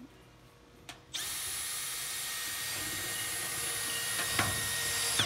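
Cordless Makita drill running steadily for about four seconds as it drives a self-drilling tech screw through the seam of corrugated steel roofing iron, starting about a second in and cutting off suddenly.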